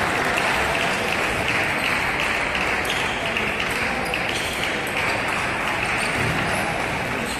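Table tennis ball clicking off bats and the table during a rally, over a steady wash of crowd noise and applause.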